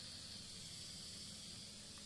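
Faint steady hiss of kernels heating in hot mustard oil in a covered wok, before any popcorn has started to pop.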